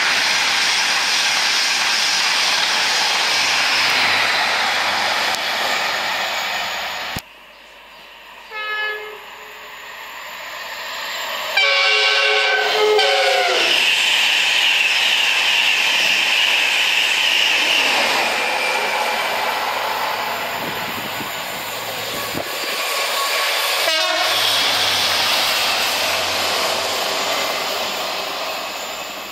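An express passenger train runs past at speed. Then an InterCity 225 gives a distant horn tone, followed a few seconds later by a loud three-tone horn, and its Mk4 coaches rush past. Near the end a locomotive pair gives a quick two-tone horn and rumbles past.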